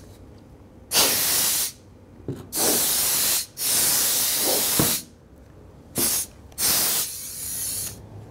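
Canned compressed-air duster sprayed through its extension straw in five separate hissing bursts, some well over a second long and others short, blowing dust off a monitor screen.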